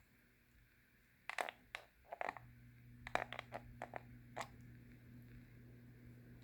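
A run of sharp clicks and light knocks, and about two and a half seconds in the low electric hum of a Hampton Bay Pilot II ceiling fan's motor steps up and then holds steady.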